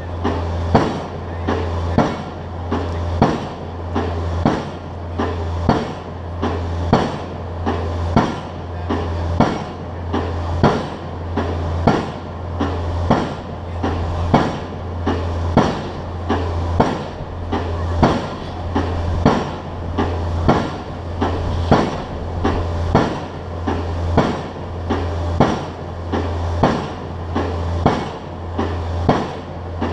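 Pile driver hammering a pile in a steady rhythm, one sharp strike a little more than once a second, over the steady low drone of the rig.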